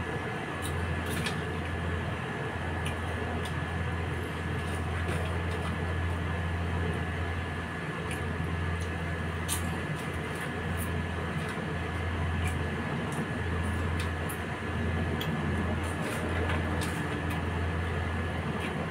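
A steady low hum with a faint hiss over it, and scattered faint crisp clicks from chewing crunchy vegetable snack sticks.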